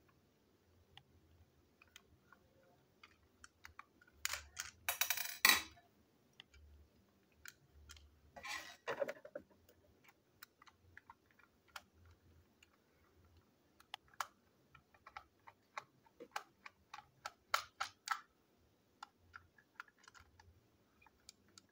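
Small plastic clicks, taps and rattles as plastic toy train parts and couplings are handled and fitted on a tabletop, with denser rattling about four to five and a half seconds in and again near nine seconds, and scattered clicks later.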